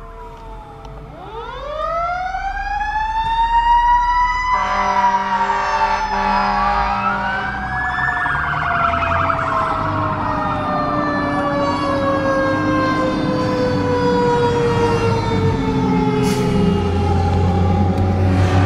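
1999 Pierce Quantum fire engine's siren winding up to a high pitch from about a second in, then slowly falling in pitch as it runs down. A horn blasts for about three seconds, and a second siren tone wails up and down over it.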